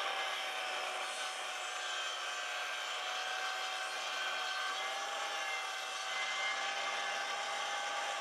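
Handheld circular saw running steadily under load as its blade cuts through a thick timber beam, with an even motor whine.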